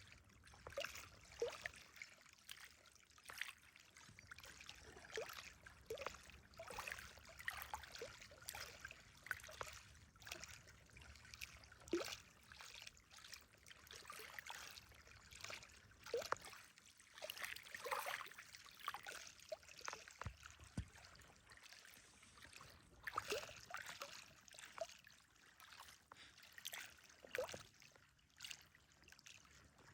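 Small reservoir waves lapping, faint and irregular: a run of soft little splashes and trickles coming every fraction of a second to a second or so.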